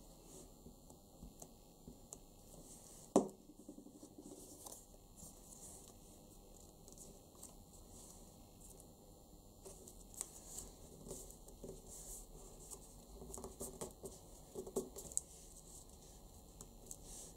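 Faint handling of folded craft paper on a tabletop: light rustles and taps, with one sharp knock about three seconds in. In the second half the rustling gets busier as the folded pieces are pressed and smoothed together.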